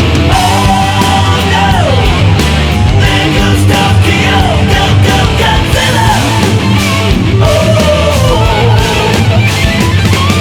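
Loud heavy rock music with distorted electric guitar and a steady drum beat.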